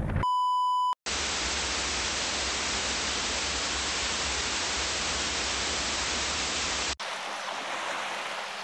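A single electronic test-tone beep lasting under a second, then about six seconds of steady white-noise static, the hiss of an edited-in VHS/TV-static effect. About seven seconds in the static cuts off suddenly to a much softer background hiss.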